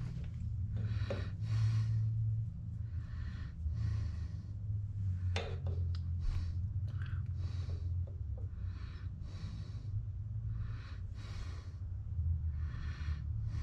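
A person breathing close to the microphone, soft puffs every second or so, over a steady low hum.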